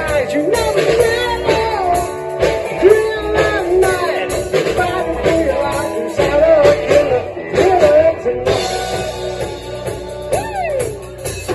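Live ukulele rock band playing: drum kit keeping a steady beat with cymbals, strummed strings, and a sung melody that slides between notes.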